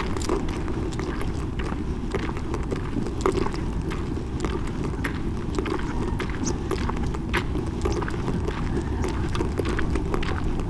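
Motorcycle riding slowly over a rough dirt road: a steady low rumble of engine and wind, with many irregular clicks and rattles throughout.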